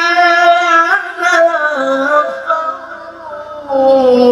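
A man reciting the Quran in melodic tilawah style into a microphone, amplified over a PA, holding long ornamented notes that slide between pitches. His voice drops softer about two and a half seconds in and swells again near the end.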